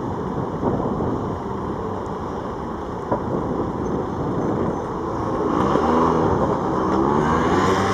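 City street traffic: a steady low rumble of passing vehicles. About five seconds in, an engine grows louder and its pitch bends upward as it pulls away.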